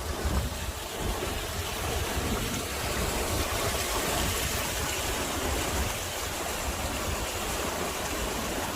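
Mountain stream running full and fast after rain, a steady rushing of water, with a low irregular rumble of wind on the microphone.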